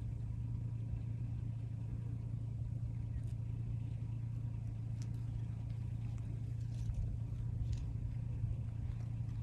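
Kia Soul driving, heard from inside the cabin: a steady low engine and road drone, with a few faint ticks.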